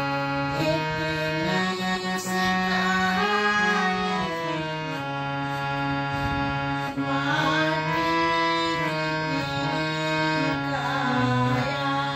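Harmonium playing a slow bhajan melody, its reed notes held and stepping from one pitch to the next over sustained low notes, with a woman's voice singing in places.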